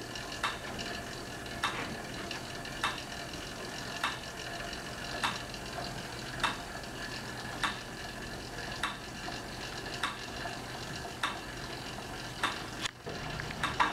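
Monark cycle ergometer being pedaled: a steady hiss from the flywheel and its friction belt, with a sharp click about every 1.2 seconds, the pace of 50 pedal revolutions a minute.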